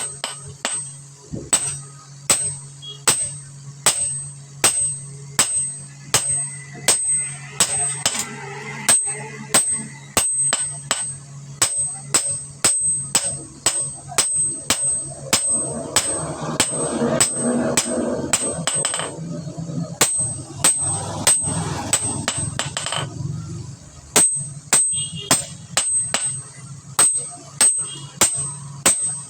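Hammer blows on hot steel over an anvil in a steady rhythm, about two strikes a second, each with a bright ring, over a steady low hum. The strikes pause briefly about twenty seconds in.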